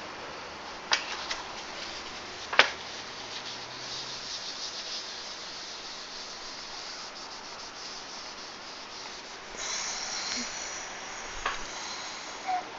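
A tissue rubbing and wiping across a desk surface, a steady scratchy swish that gets louder about ten seconds in. A few small sharp clicks of handled parts come in between, the sharpest about two and a half seconds in.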